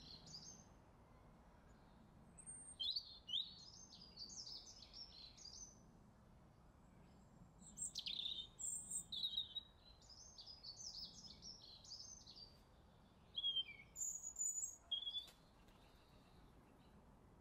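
A small songbird singing in four bursts of quick, twittering chirps, with short pauses between, over a faint steady background hum.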